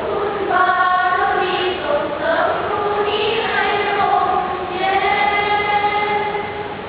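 Children's school choir singing in harmony, with several long held notes.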